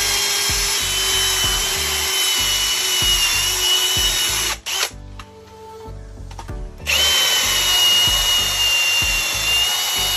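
Cordless drill with a step (Unibit) bit boring a hole through a Tesla Wall Connector wall bracket for a cable connector. It runs with a steady high whine, stops about four and a half seconds in, and starts again a couple of seconds later.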